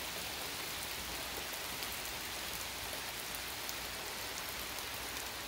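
Rain falling hard, heard as a steady even hiss with scattered sharper drop ticks.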